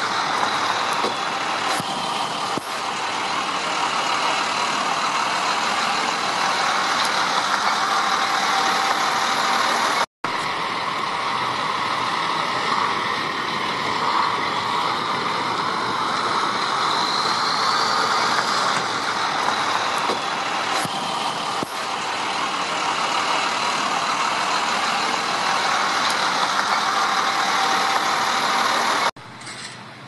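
Flatbed tow truck's engine running close by, a loud, steady noise. It breaks off for an instant about a third of the way in, then drops sharply to a quieter background shortly before the end.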